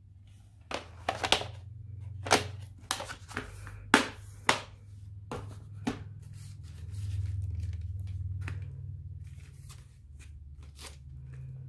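VHS cassettes and hard plastic clamshell cases being handled: a run of sharp plastic clacks and knocks over a low steady hum, then only the hum from about six seconds in.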